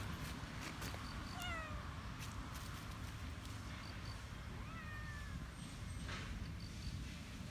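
A cat meowing twice, two short calls about three seconds apart: the first falls in pitch, the second rises and then falls. A steady low rumble runs underneath.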